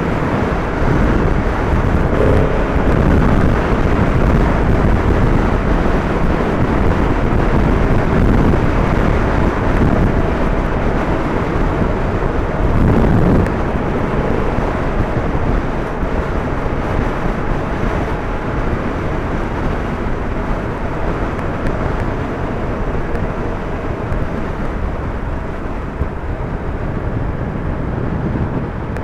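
Yamaha MT-10 motorcycle's crossplane inline-four engine running on the move, under heavy wind rush over the microphone, with a few brief shifts in engine note.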